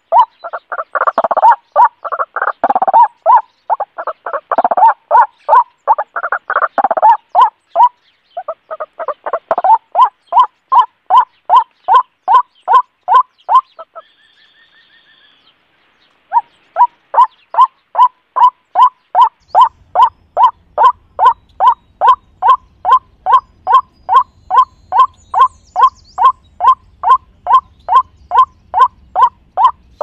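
A bird call repeated over and over, a short clipped note about two to three times a second, with a brief pause about halfway through.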